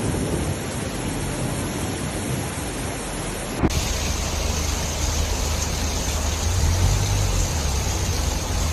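Steady hiss of heavy rain, cutting abruptly about three and a half seconds in to a second recording of the same kind of noise with a low rumble underneath.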